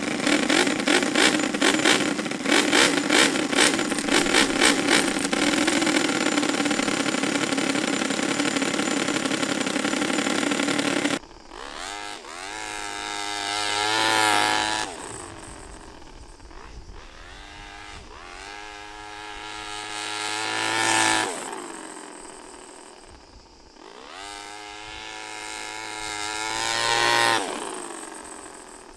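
The small V4 engine of a 3-speed RC car, revving hard for about eleven seconds, then three passes of the car accelerating away, each a smoothly climbing engine note that then fades. No gear change is heard in the climb: the centrifugal clutches for 2nd and 3rd gear will not engage at the rpm this V4 can reach.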